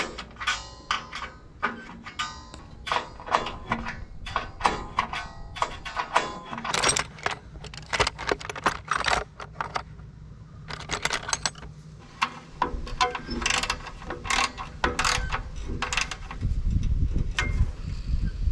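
Irregular metallic clicks and clinks of a wrench on nuts and bolts as hardware is worked by hand, over a low steady hum.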